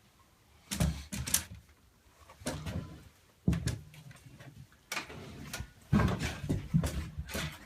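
A homemade motorcycle stand being handled and set in place. It makes five clusters of clunks and knocks, with the loudest run of knocks near the end.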